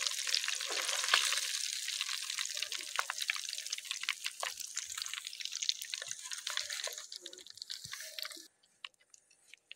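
Battered fish deep-frying in hot oil in a clay pot: a steady sizzle full of small crackles and pops. The sizzle thins out near the end and then cuts off abruptly.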